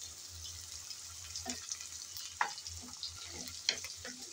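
Prawns, sliced onion and garlic frying lightly in oil in a pan, with a steady soft sizzle. A wooden spatula scrapes and knocks against the pan a few times as they are stirred.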